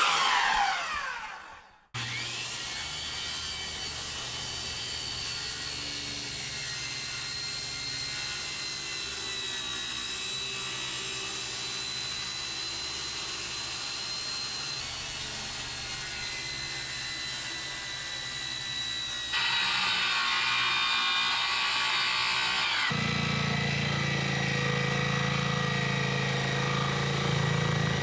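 A DeWalt circular saw spins down, then power saws run and cut through the fiberglass-and-foam transom with a steady motor whine. The sound changes abruptly twice, becoming louder and deeper in the last few seconds.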